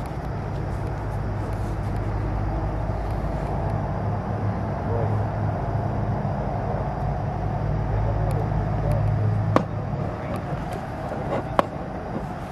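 A steady low motor hum, like an engine running, that drops away about nine and a half seconds in. Two sharp clicks come near the end.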